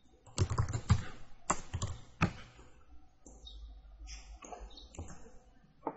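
Computer keyboard typing: a few separate sharp keystrokes in the first two seconds or so, then fainter, scattered tapping.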